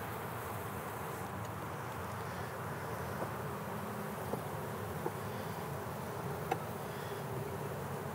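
Honey bees humming steadily as a brood frame covered with bees is lifted and set into an observation hive, with a few faint clicks of handling.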